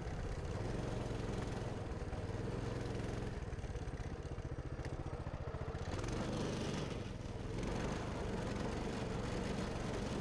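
Coleman Mini Bike 200's small single-cylinder engine running as the mini bike is ridden onto snow, with a steady engine note that changes about six seconds in.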